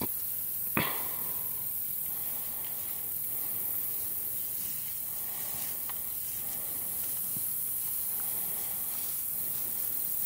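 Steady high-pitched hiss of field insects, with one sharp click about a second in.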